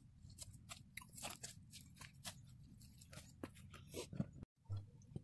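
Faint irregular crackling and clicking over a low rumble, as the phone camera is handled and fabric brushes the microphone. The sound drops out completely for a moment about four and a half seconds in.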